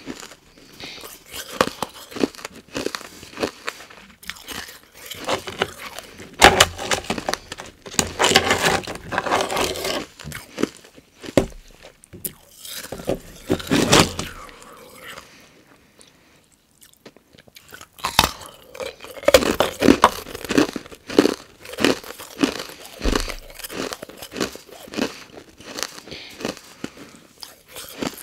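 Close-miked, loud crunching and chewing of carbonated ice, one crunch after another, with a pause of about two seconds a little past halfway before the crunching starts again.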